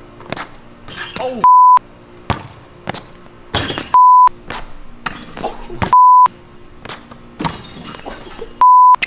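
Four short edited-in test-tone beeps, each a steady high pitch lasting about a third of a second and blanking out all other sound, spaced two to three seconds apart. The one about four seconds in plays over TV colour bars. Between the beeps a basketball knocks sharply as it is dribbled on the outdoor court.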